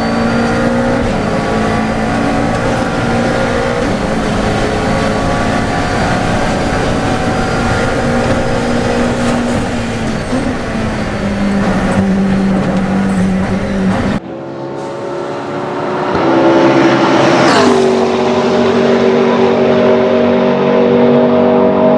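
Race car's 3.8-litre V8 engine running steadily at high revs, its pitch wavering slightly. About fourteen seconds in, the sound cuts abruptly; the engine then revs up, peaks with a sharp rise in pitch and settles into a steady drone.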